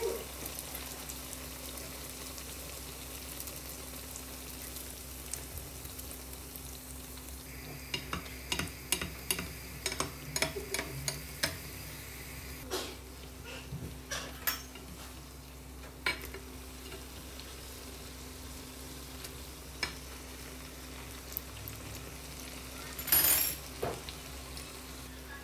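Potato-yeast doughnut rings deep-frying in hot oil in a pan, with a steady sizzle. A metal spoon taps and clinks against the pan in a quick run of strokes through the middle, and once more loudly near the end, as the rings are basted and turned over.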